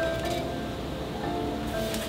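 Background music: a melody of held instrumental notes.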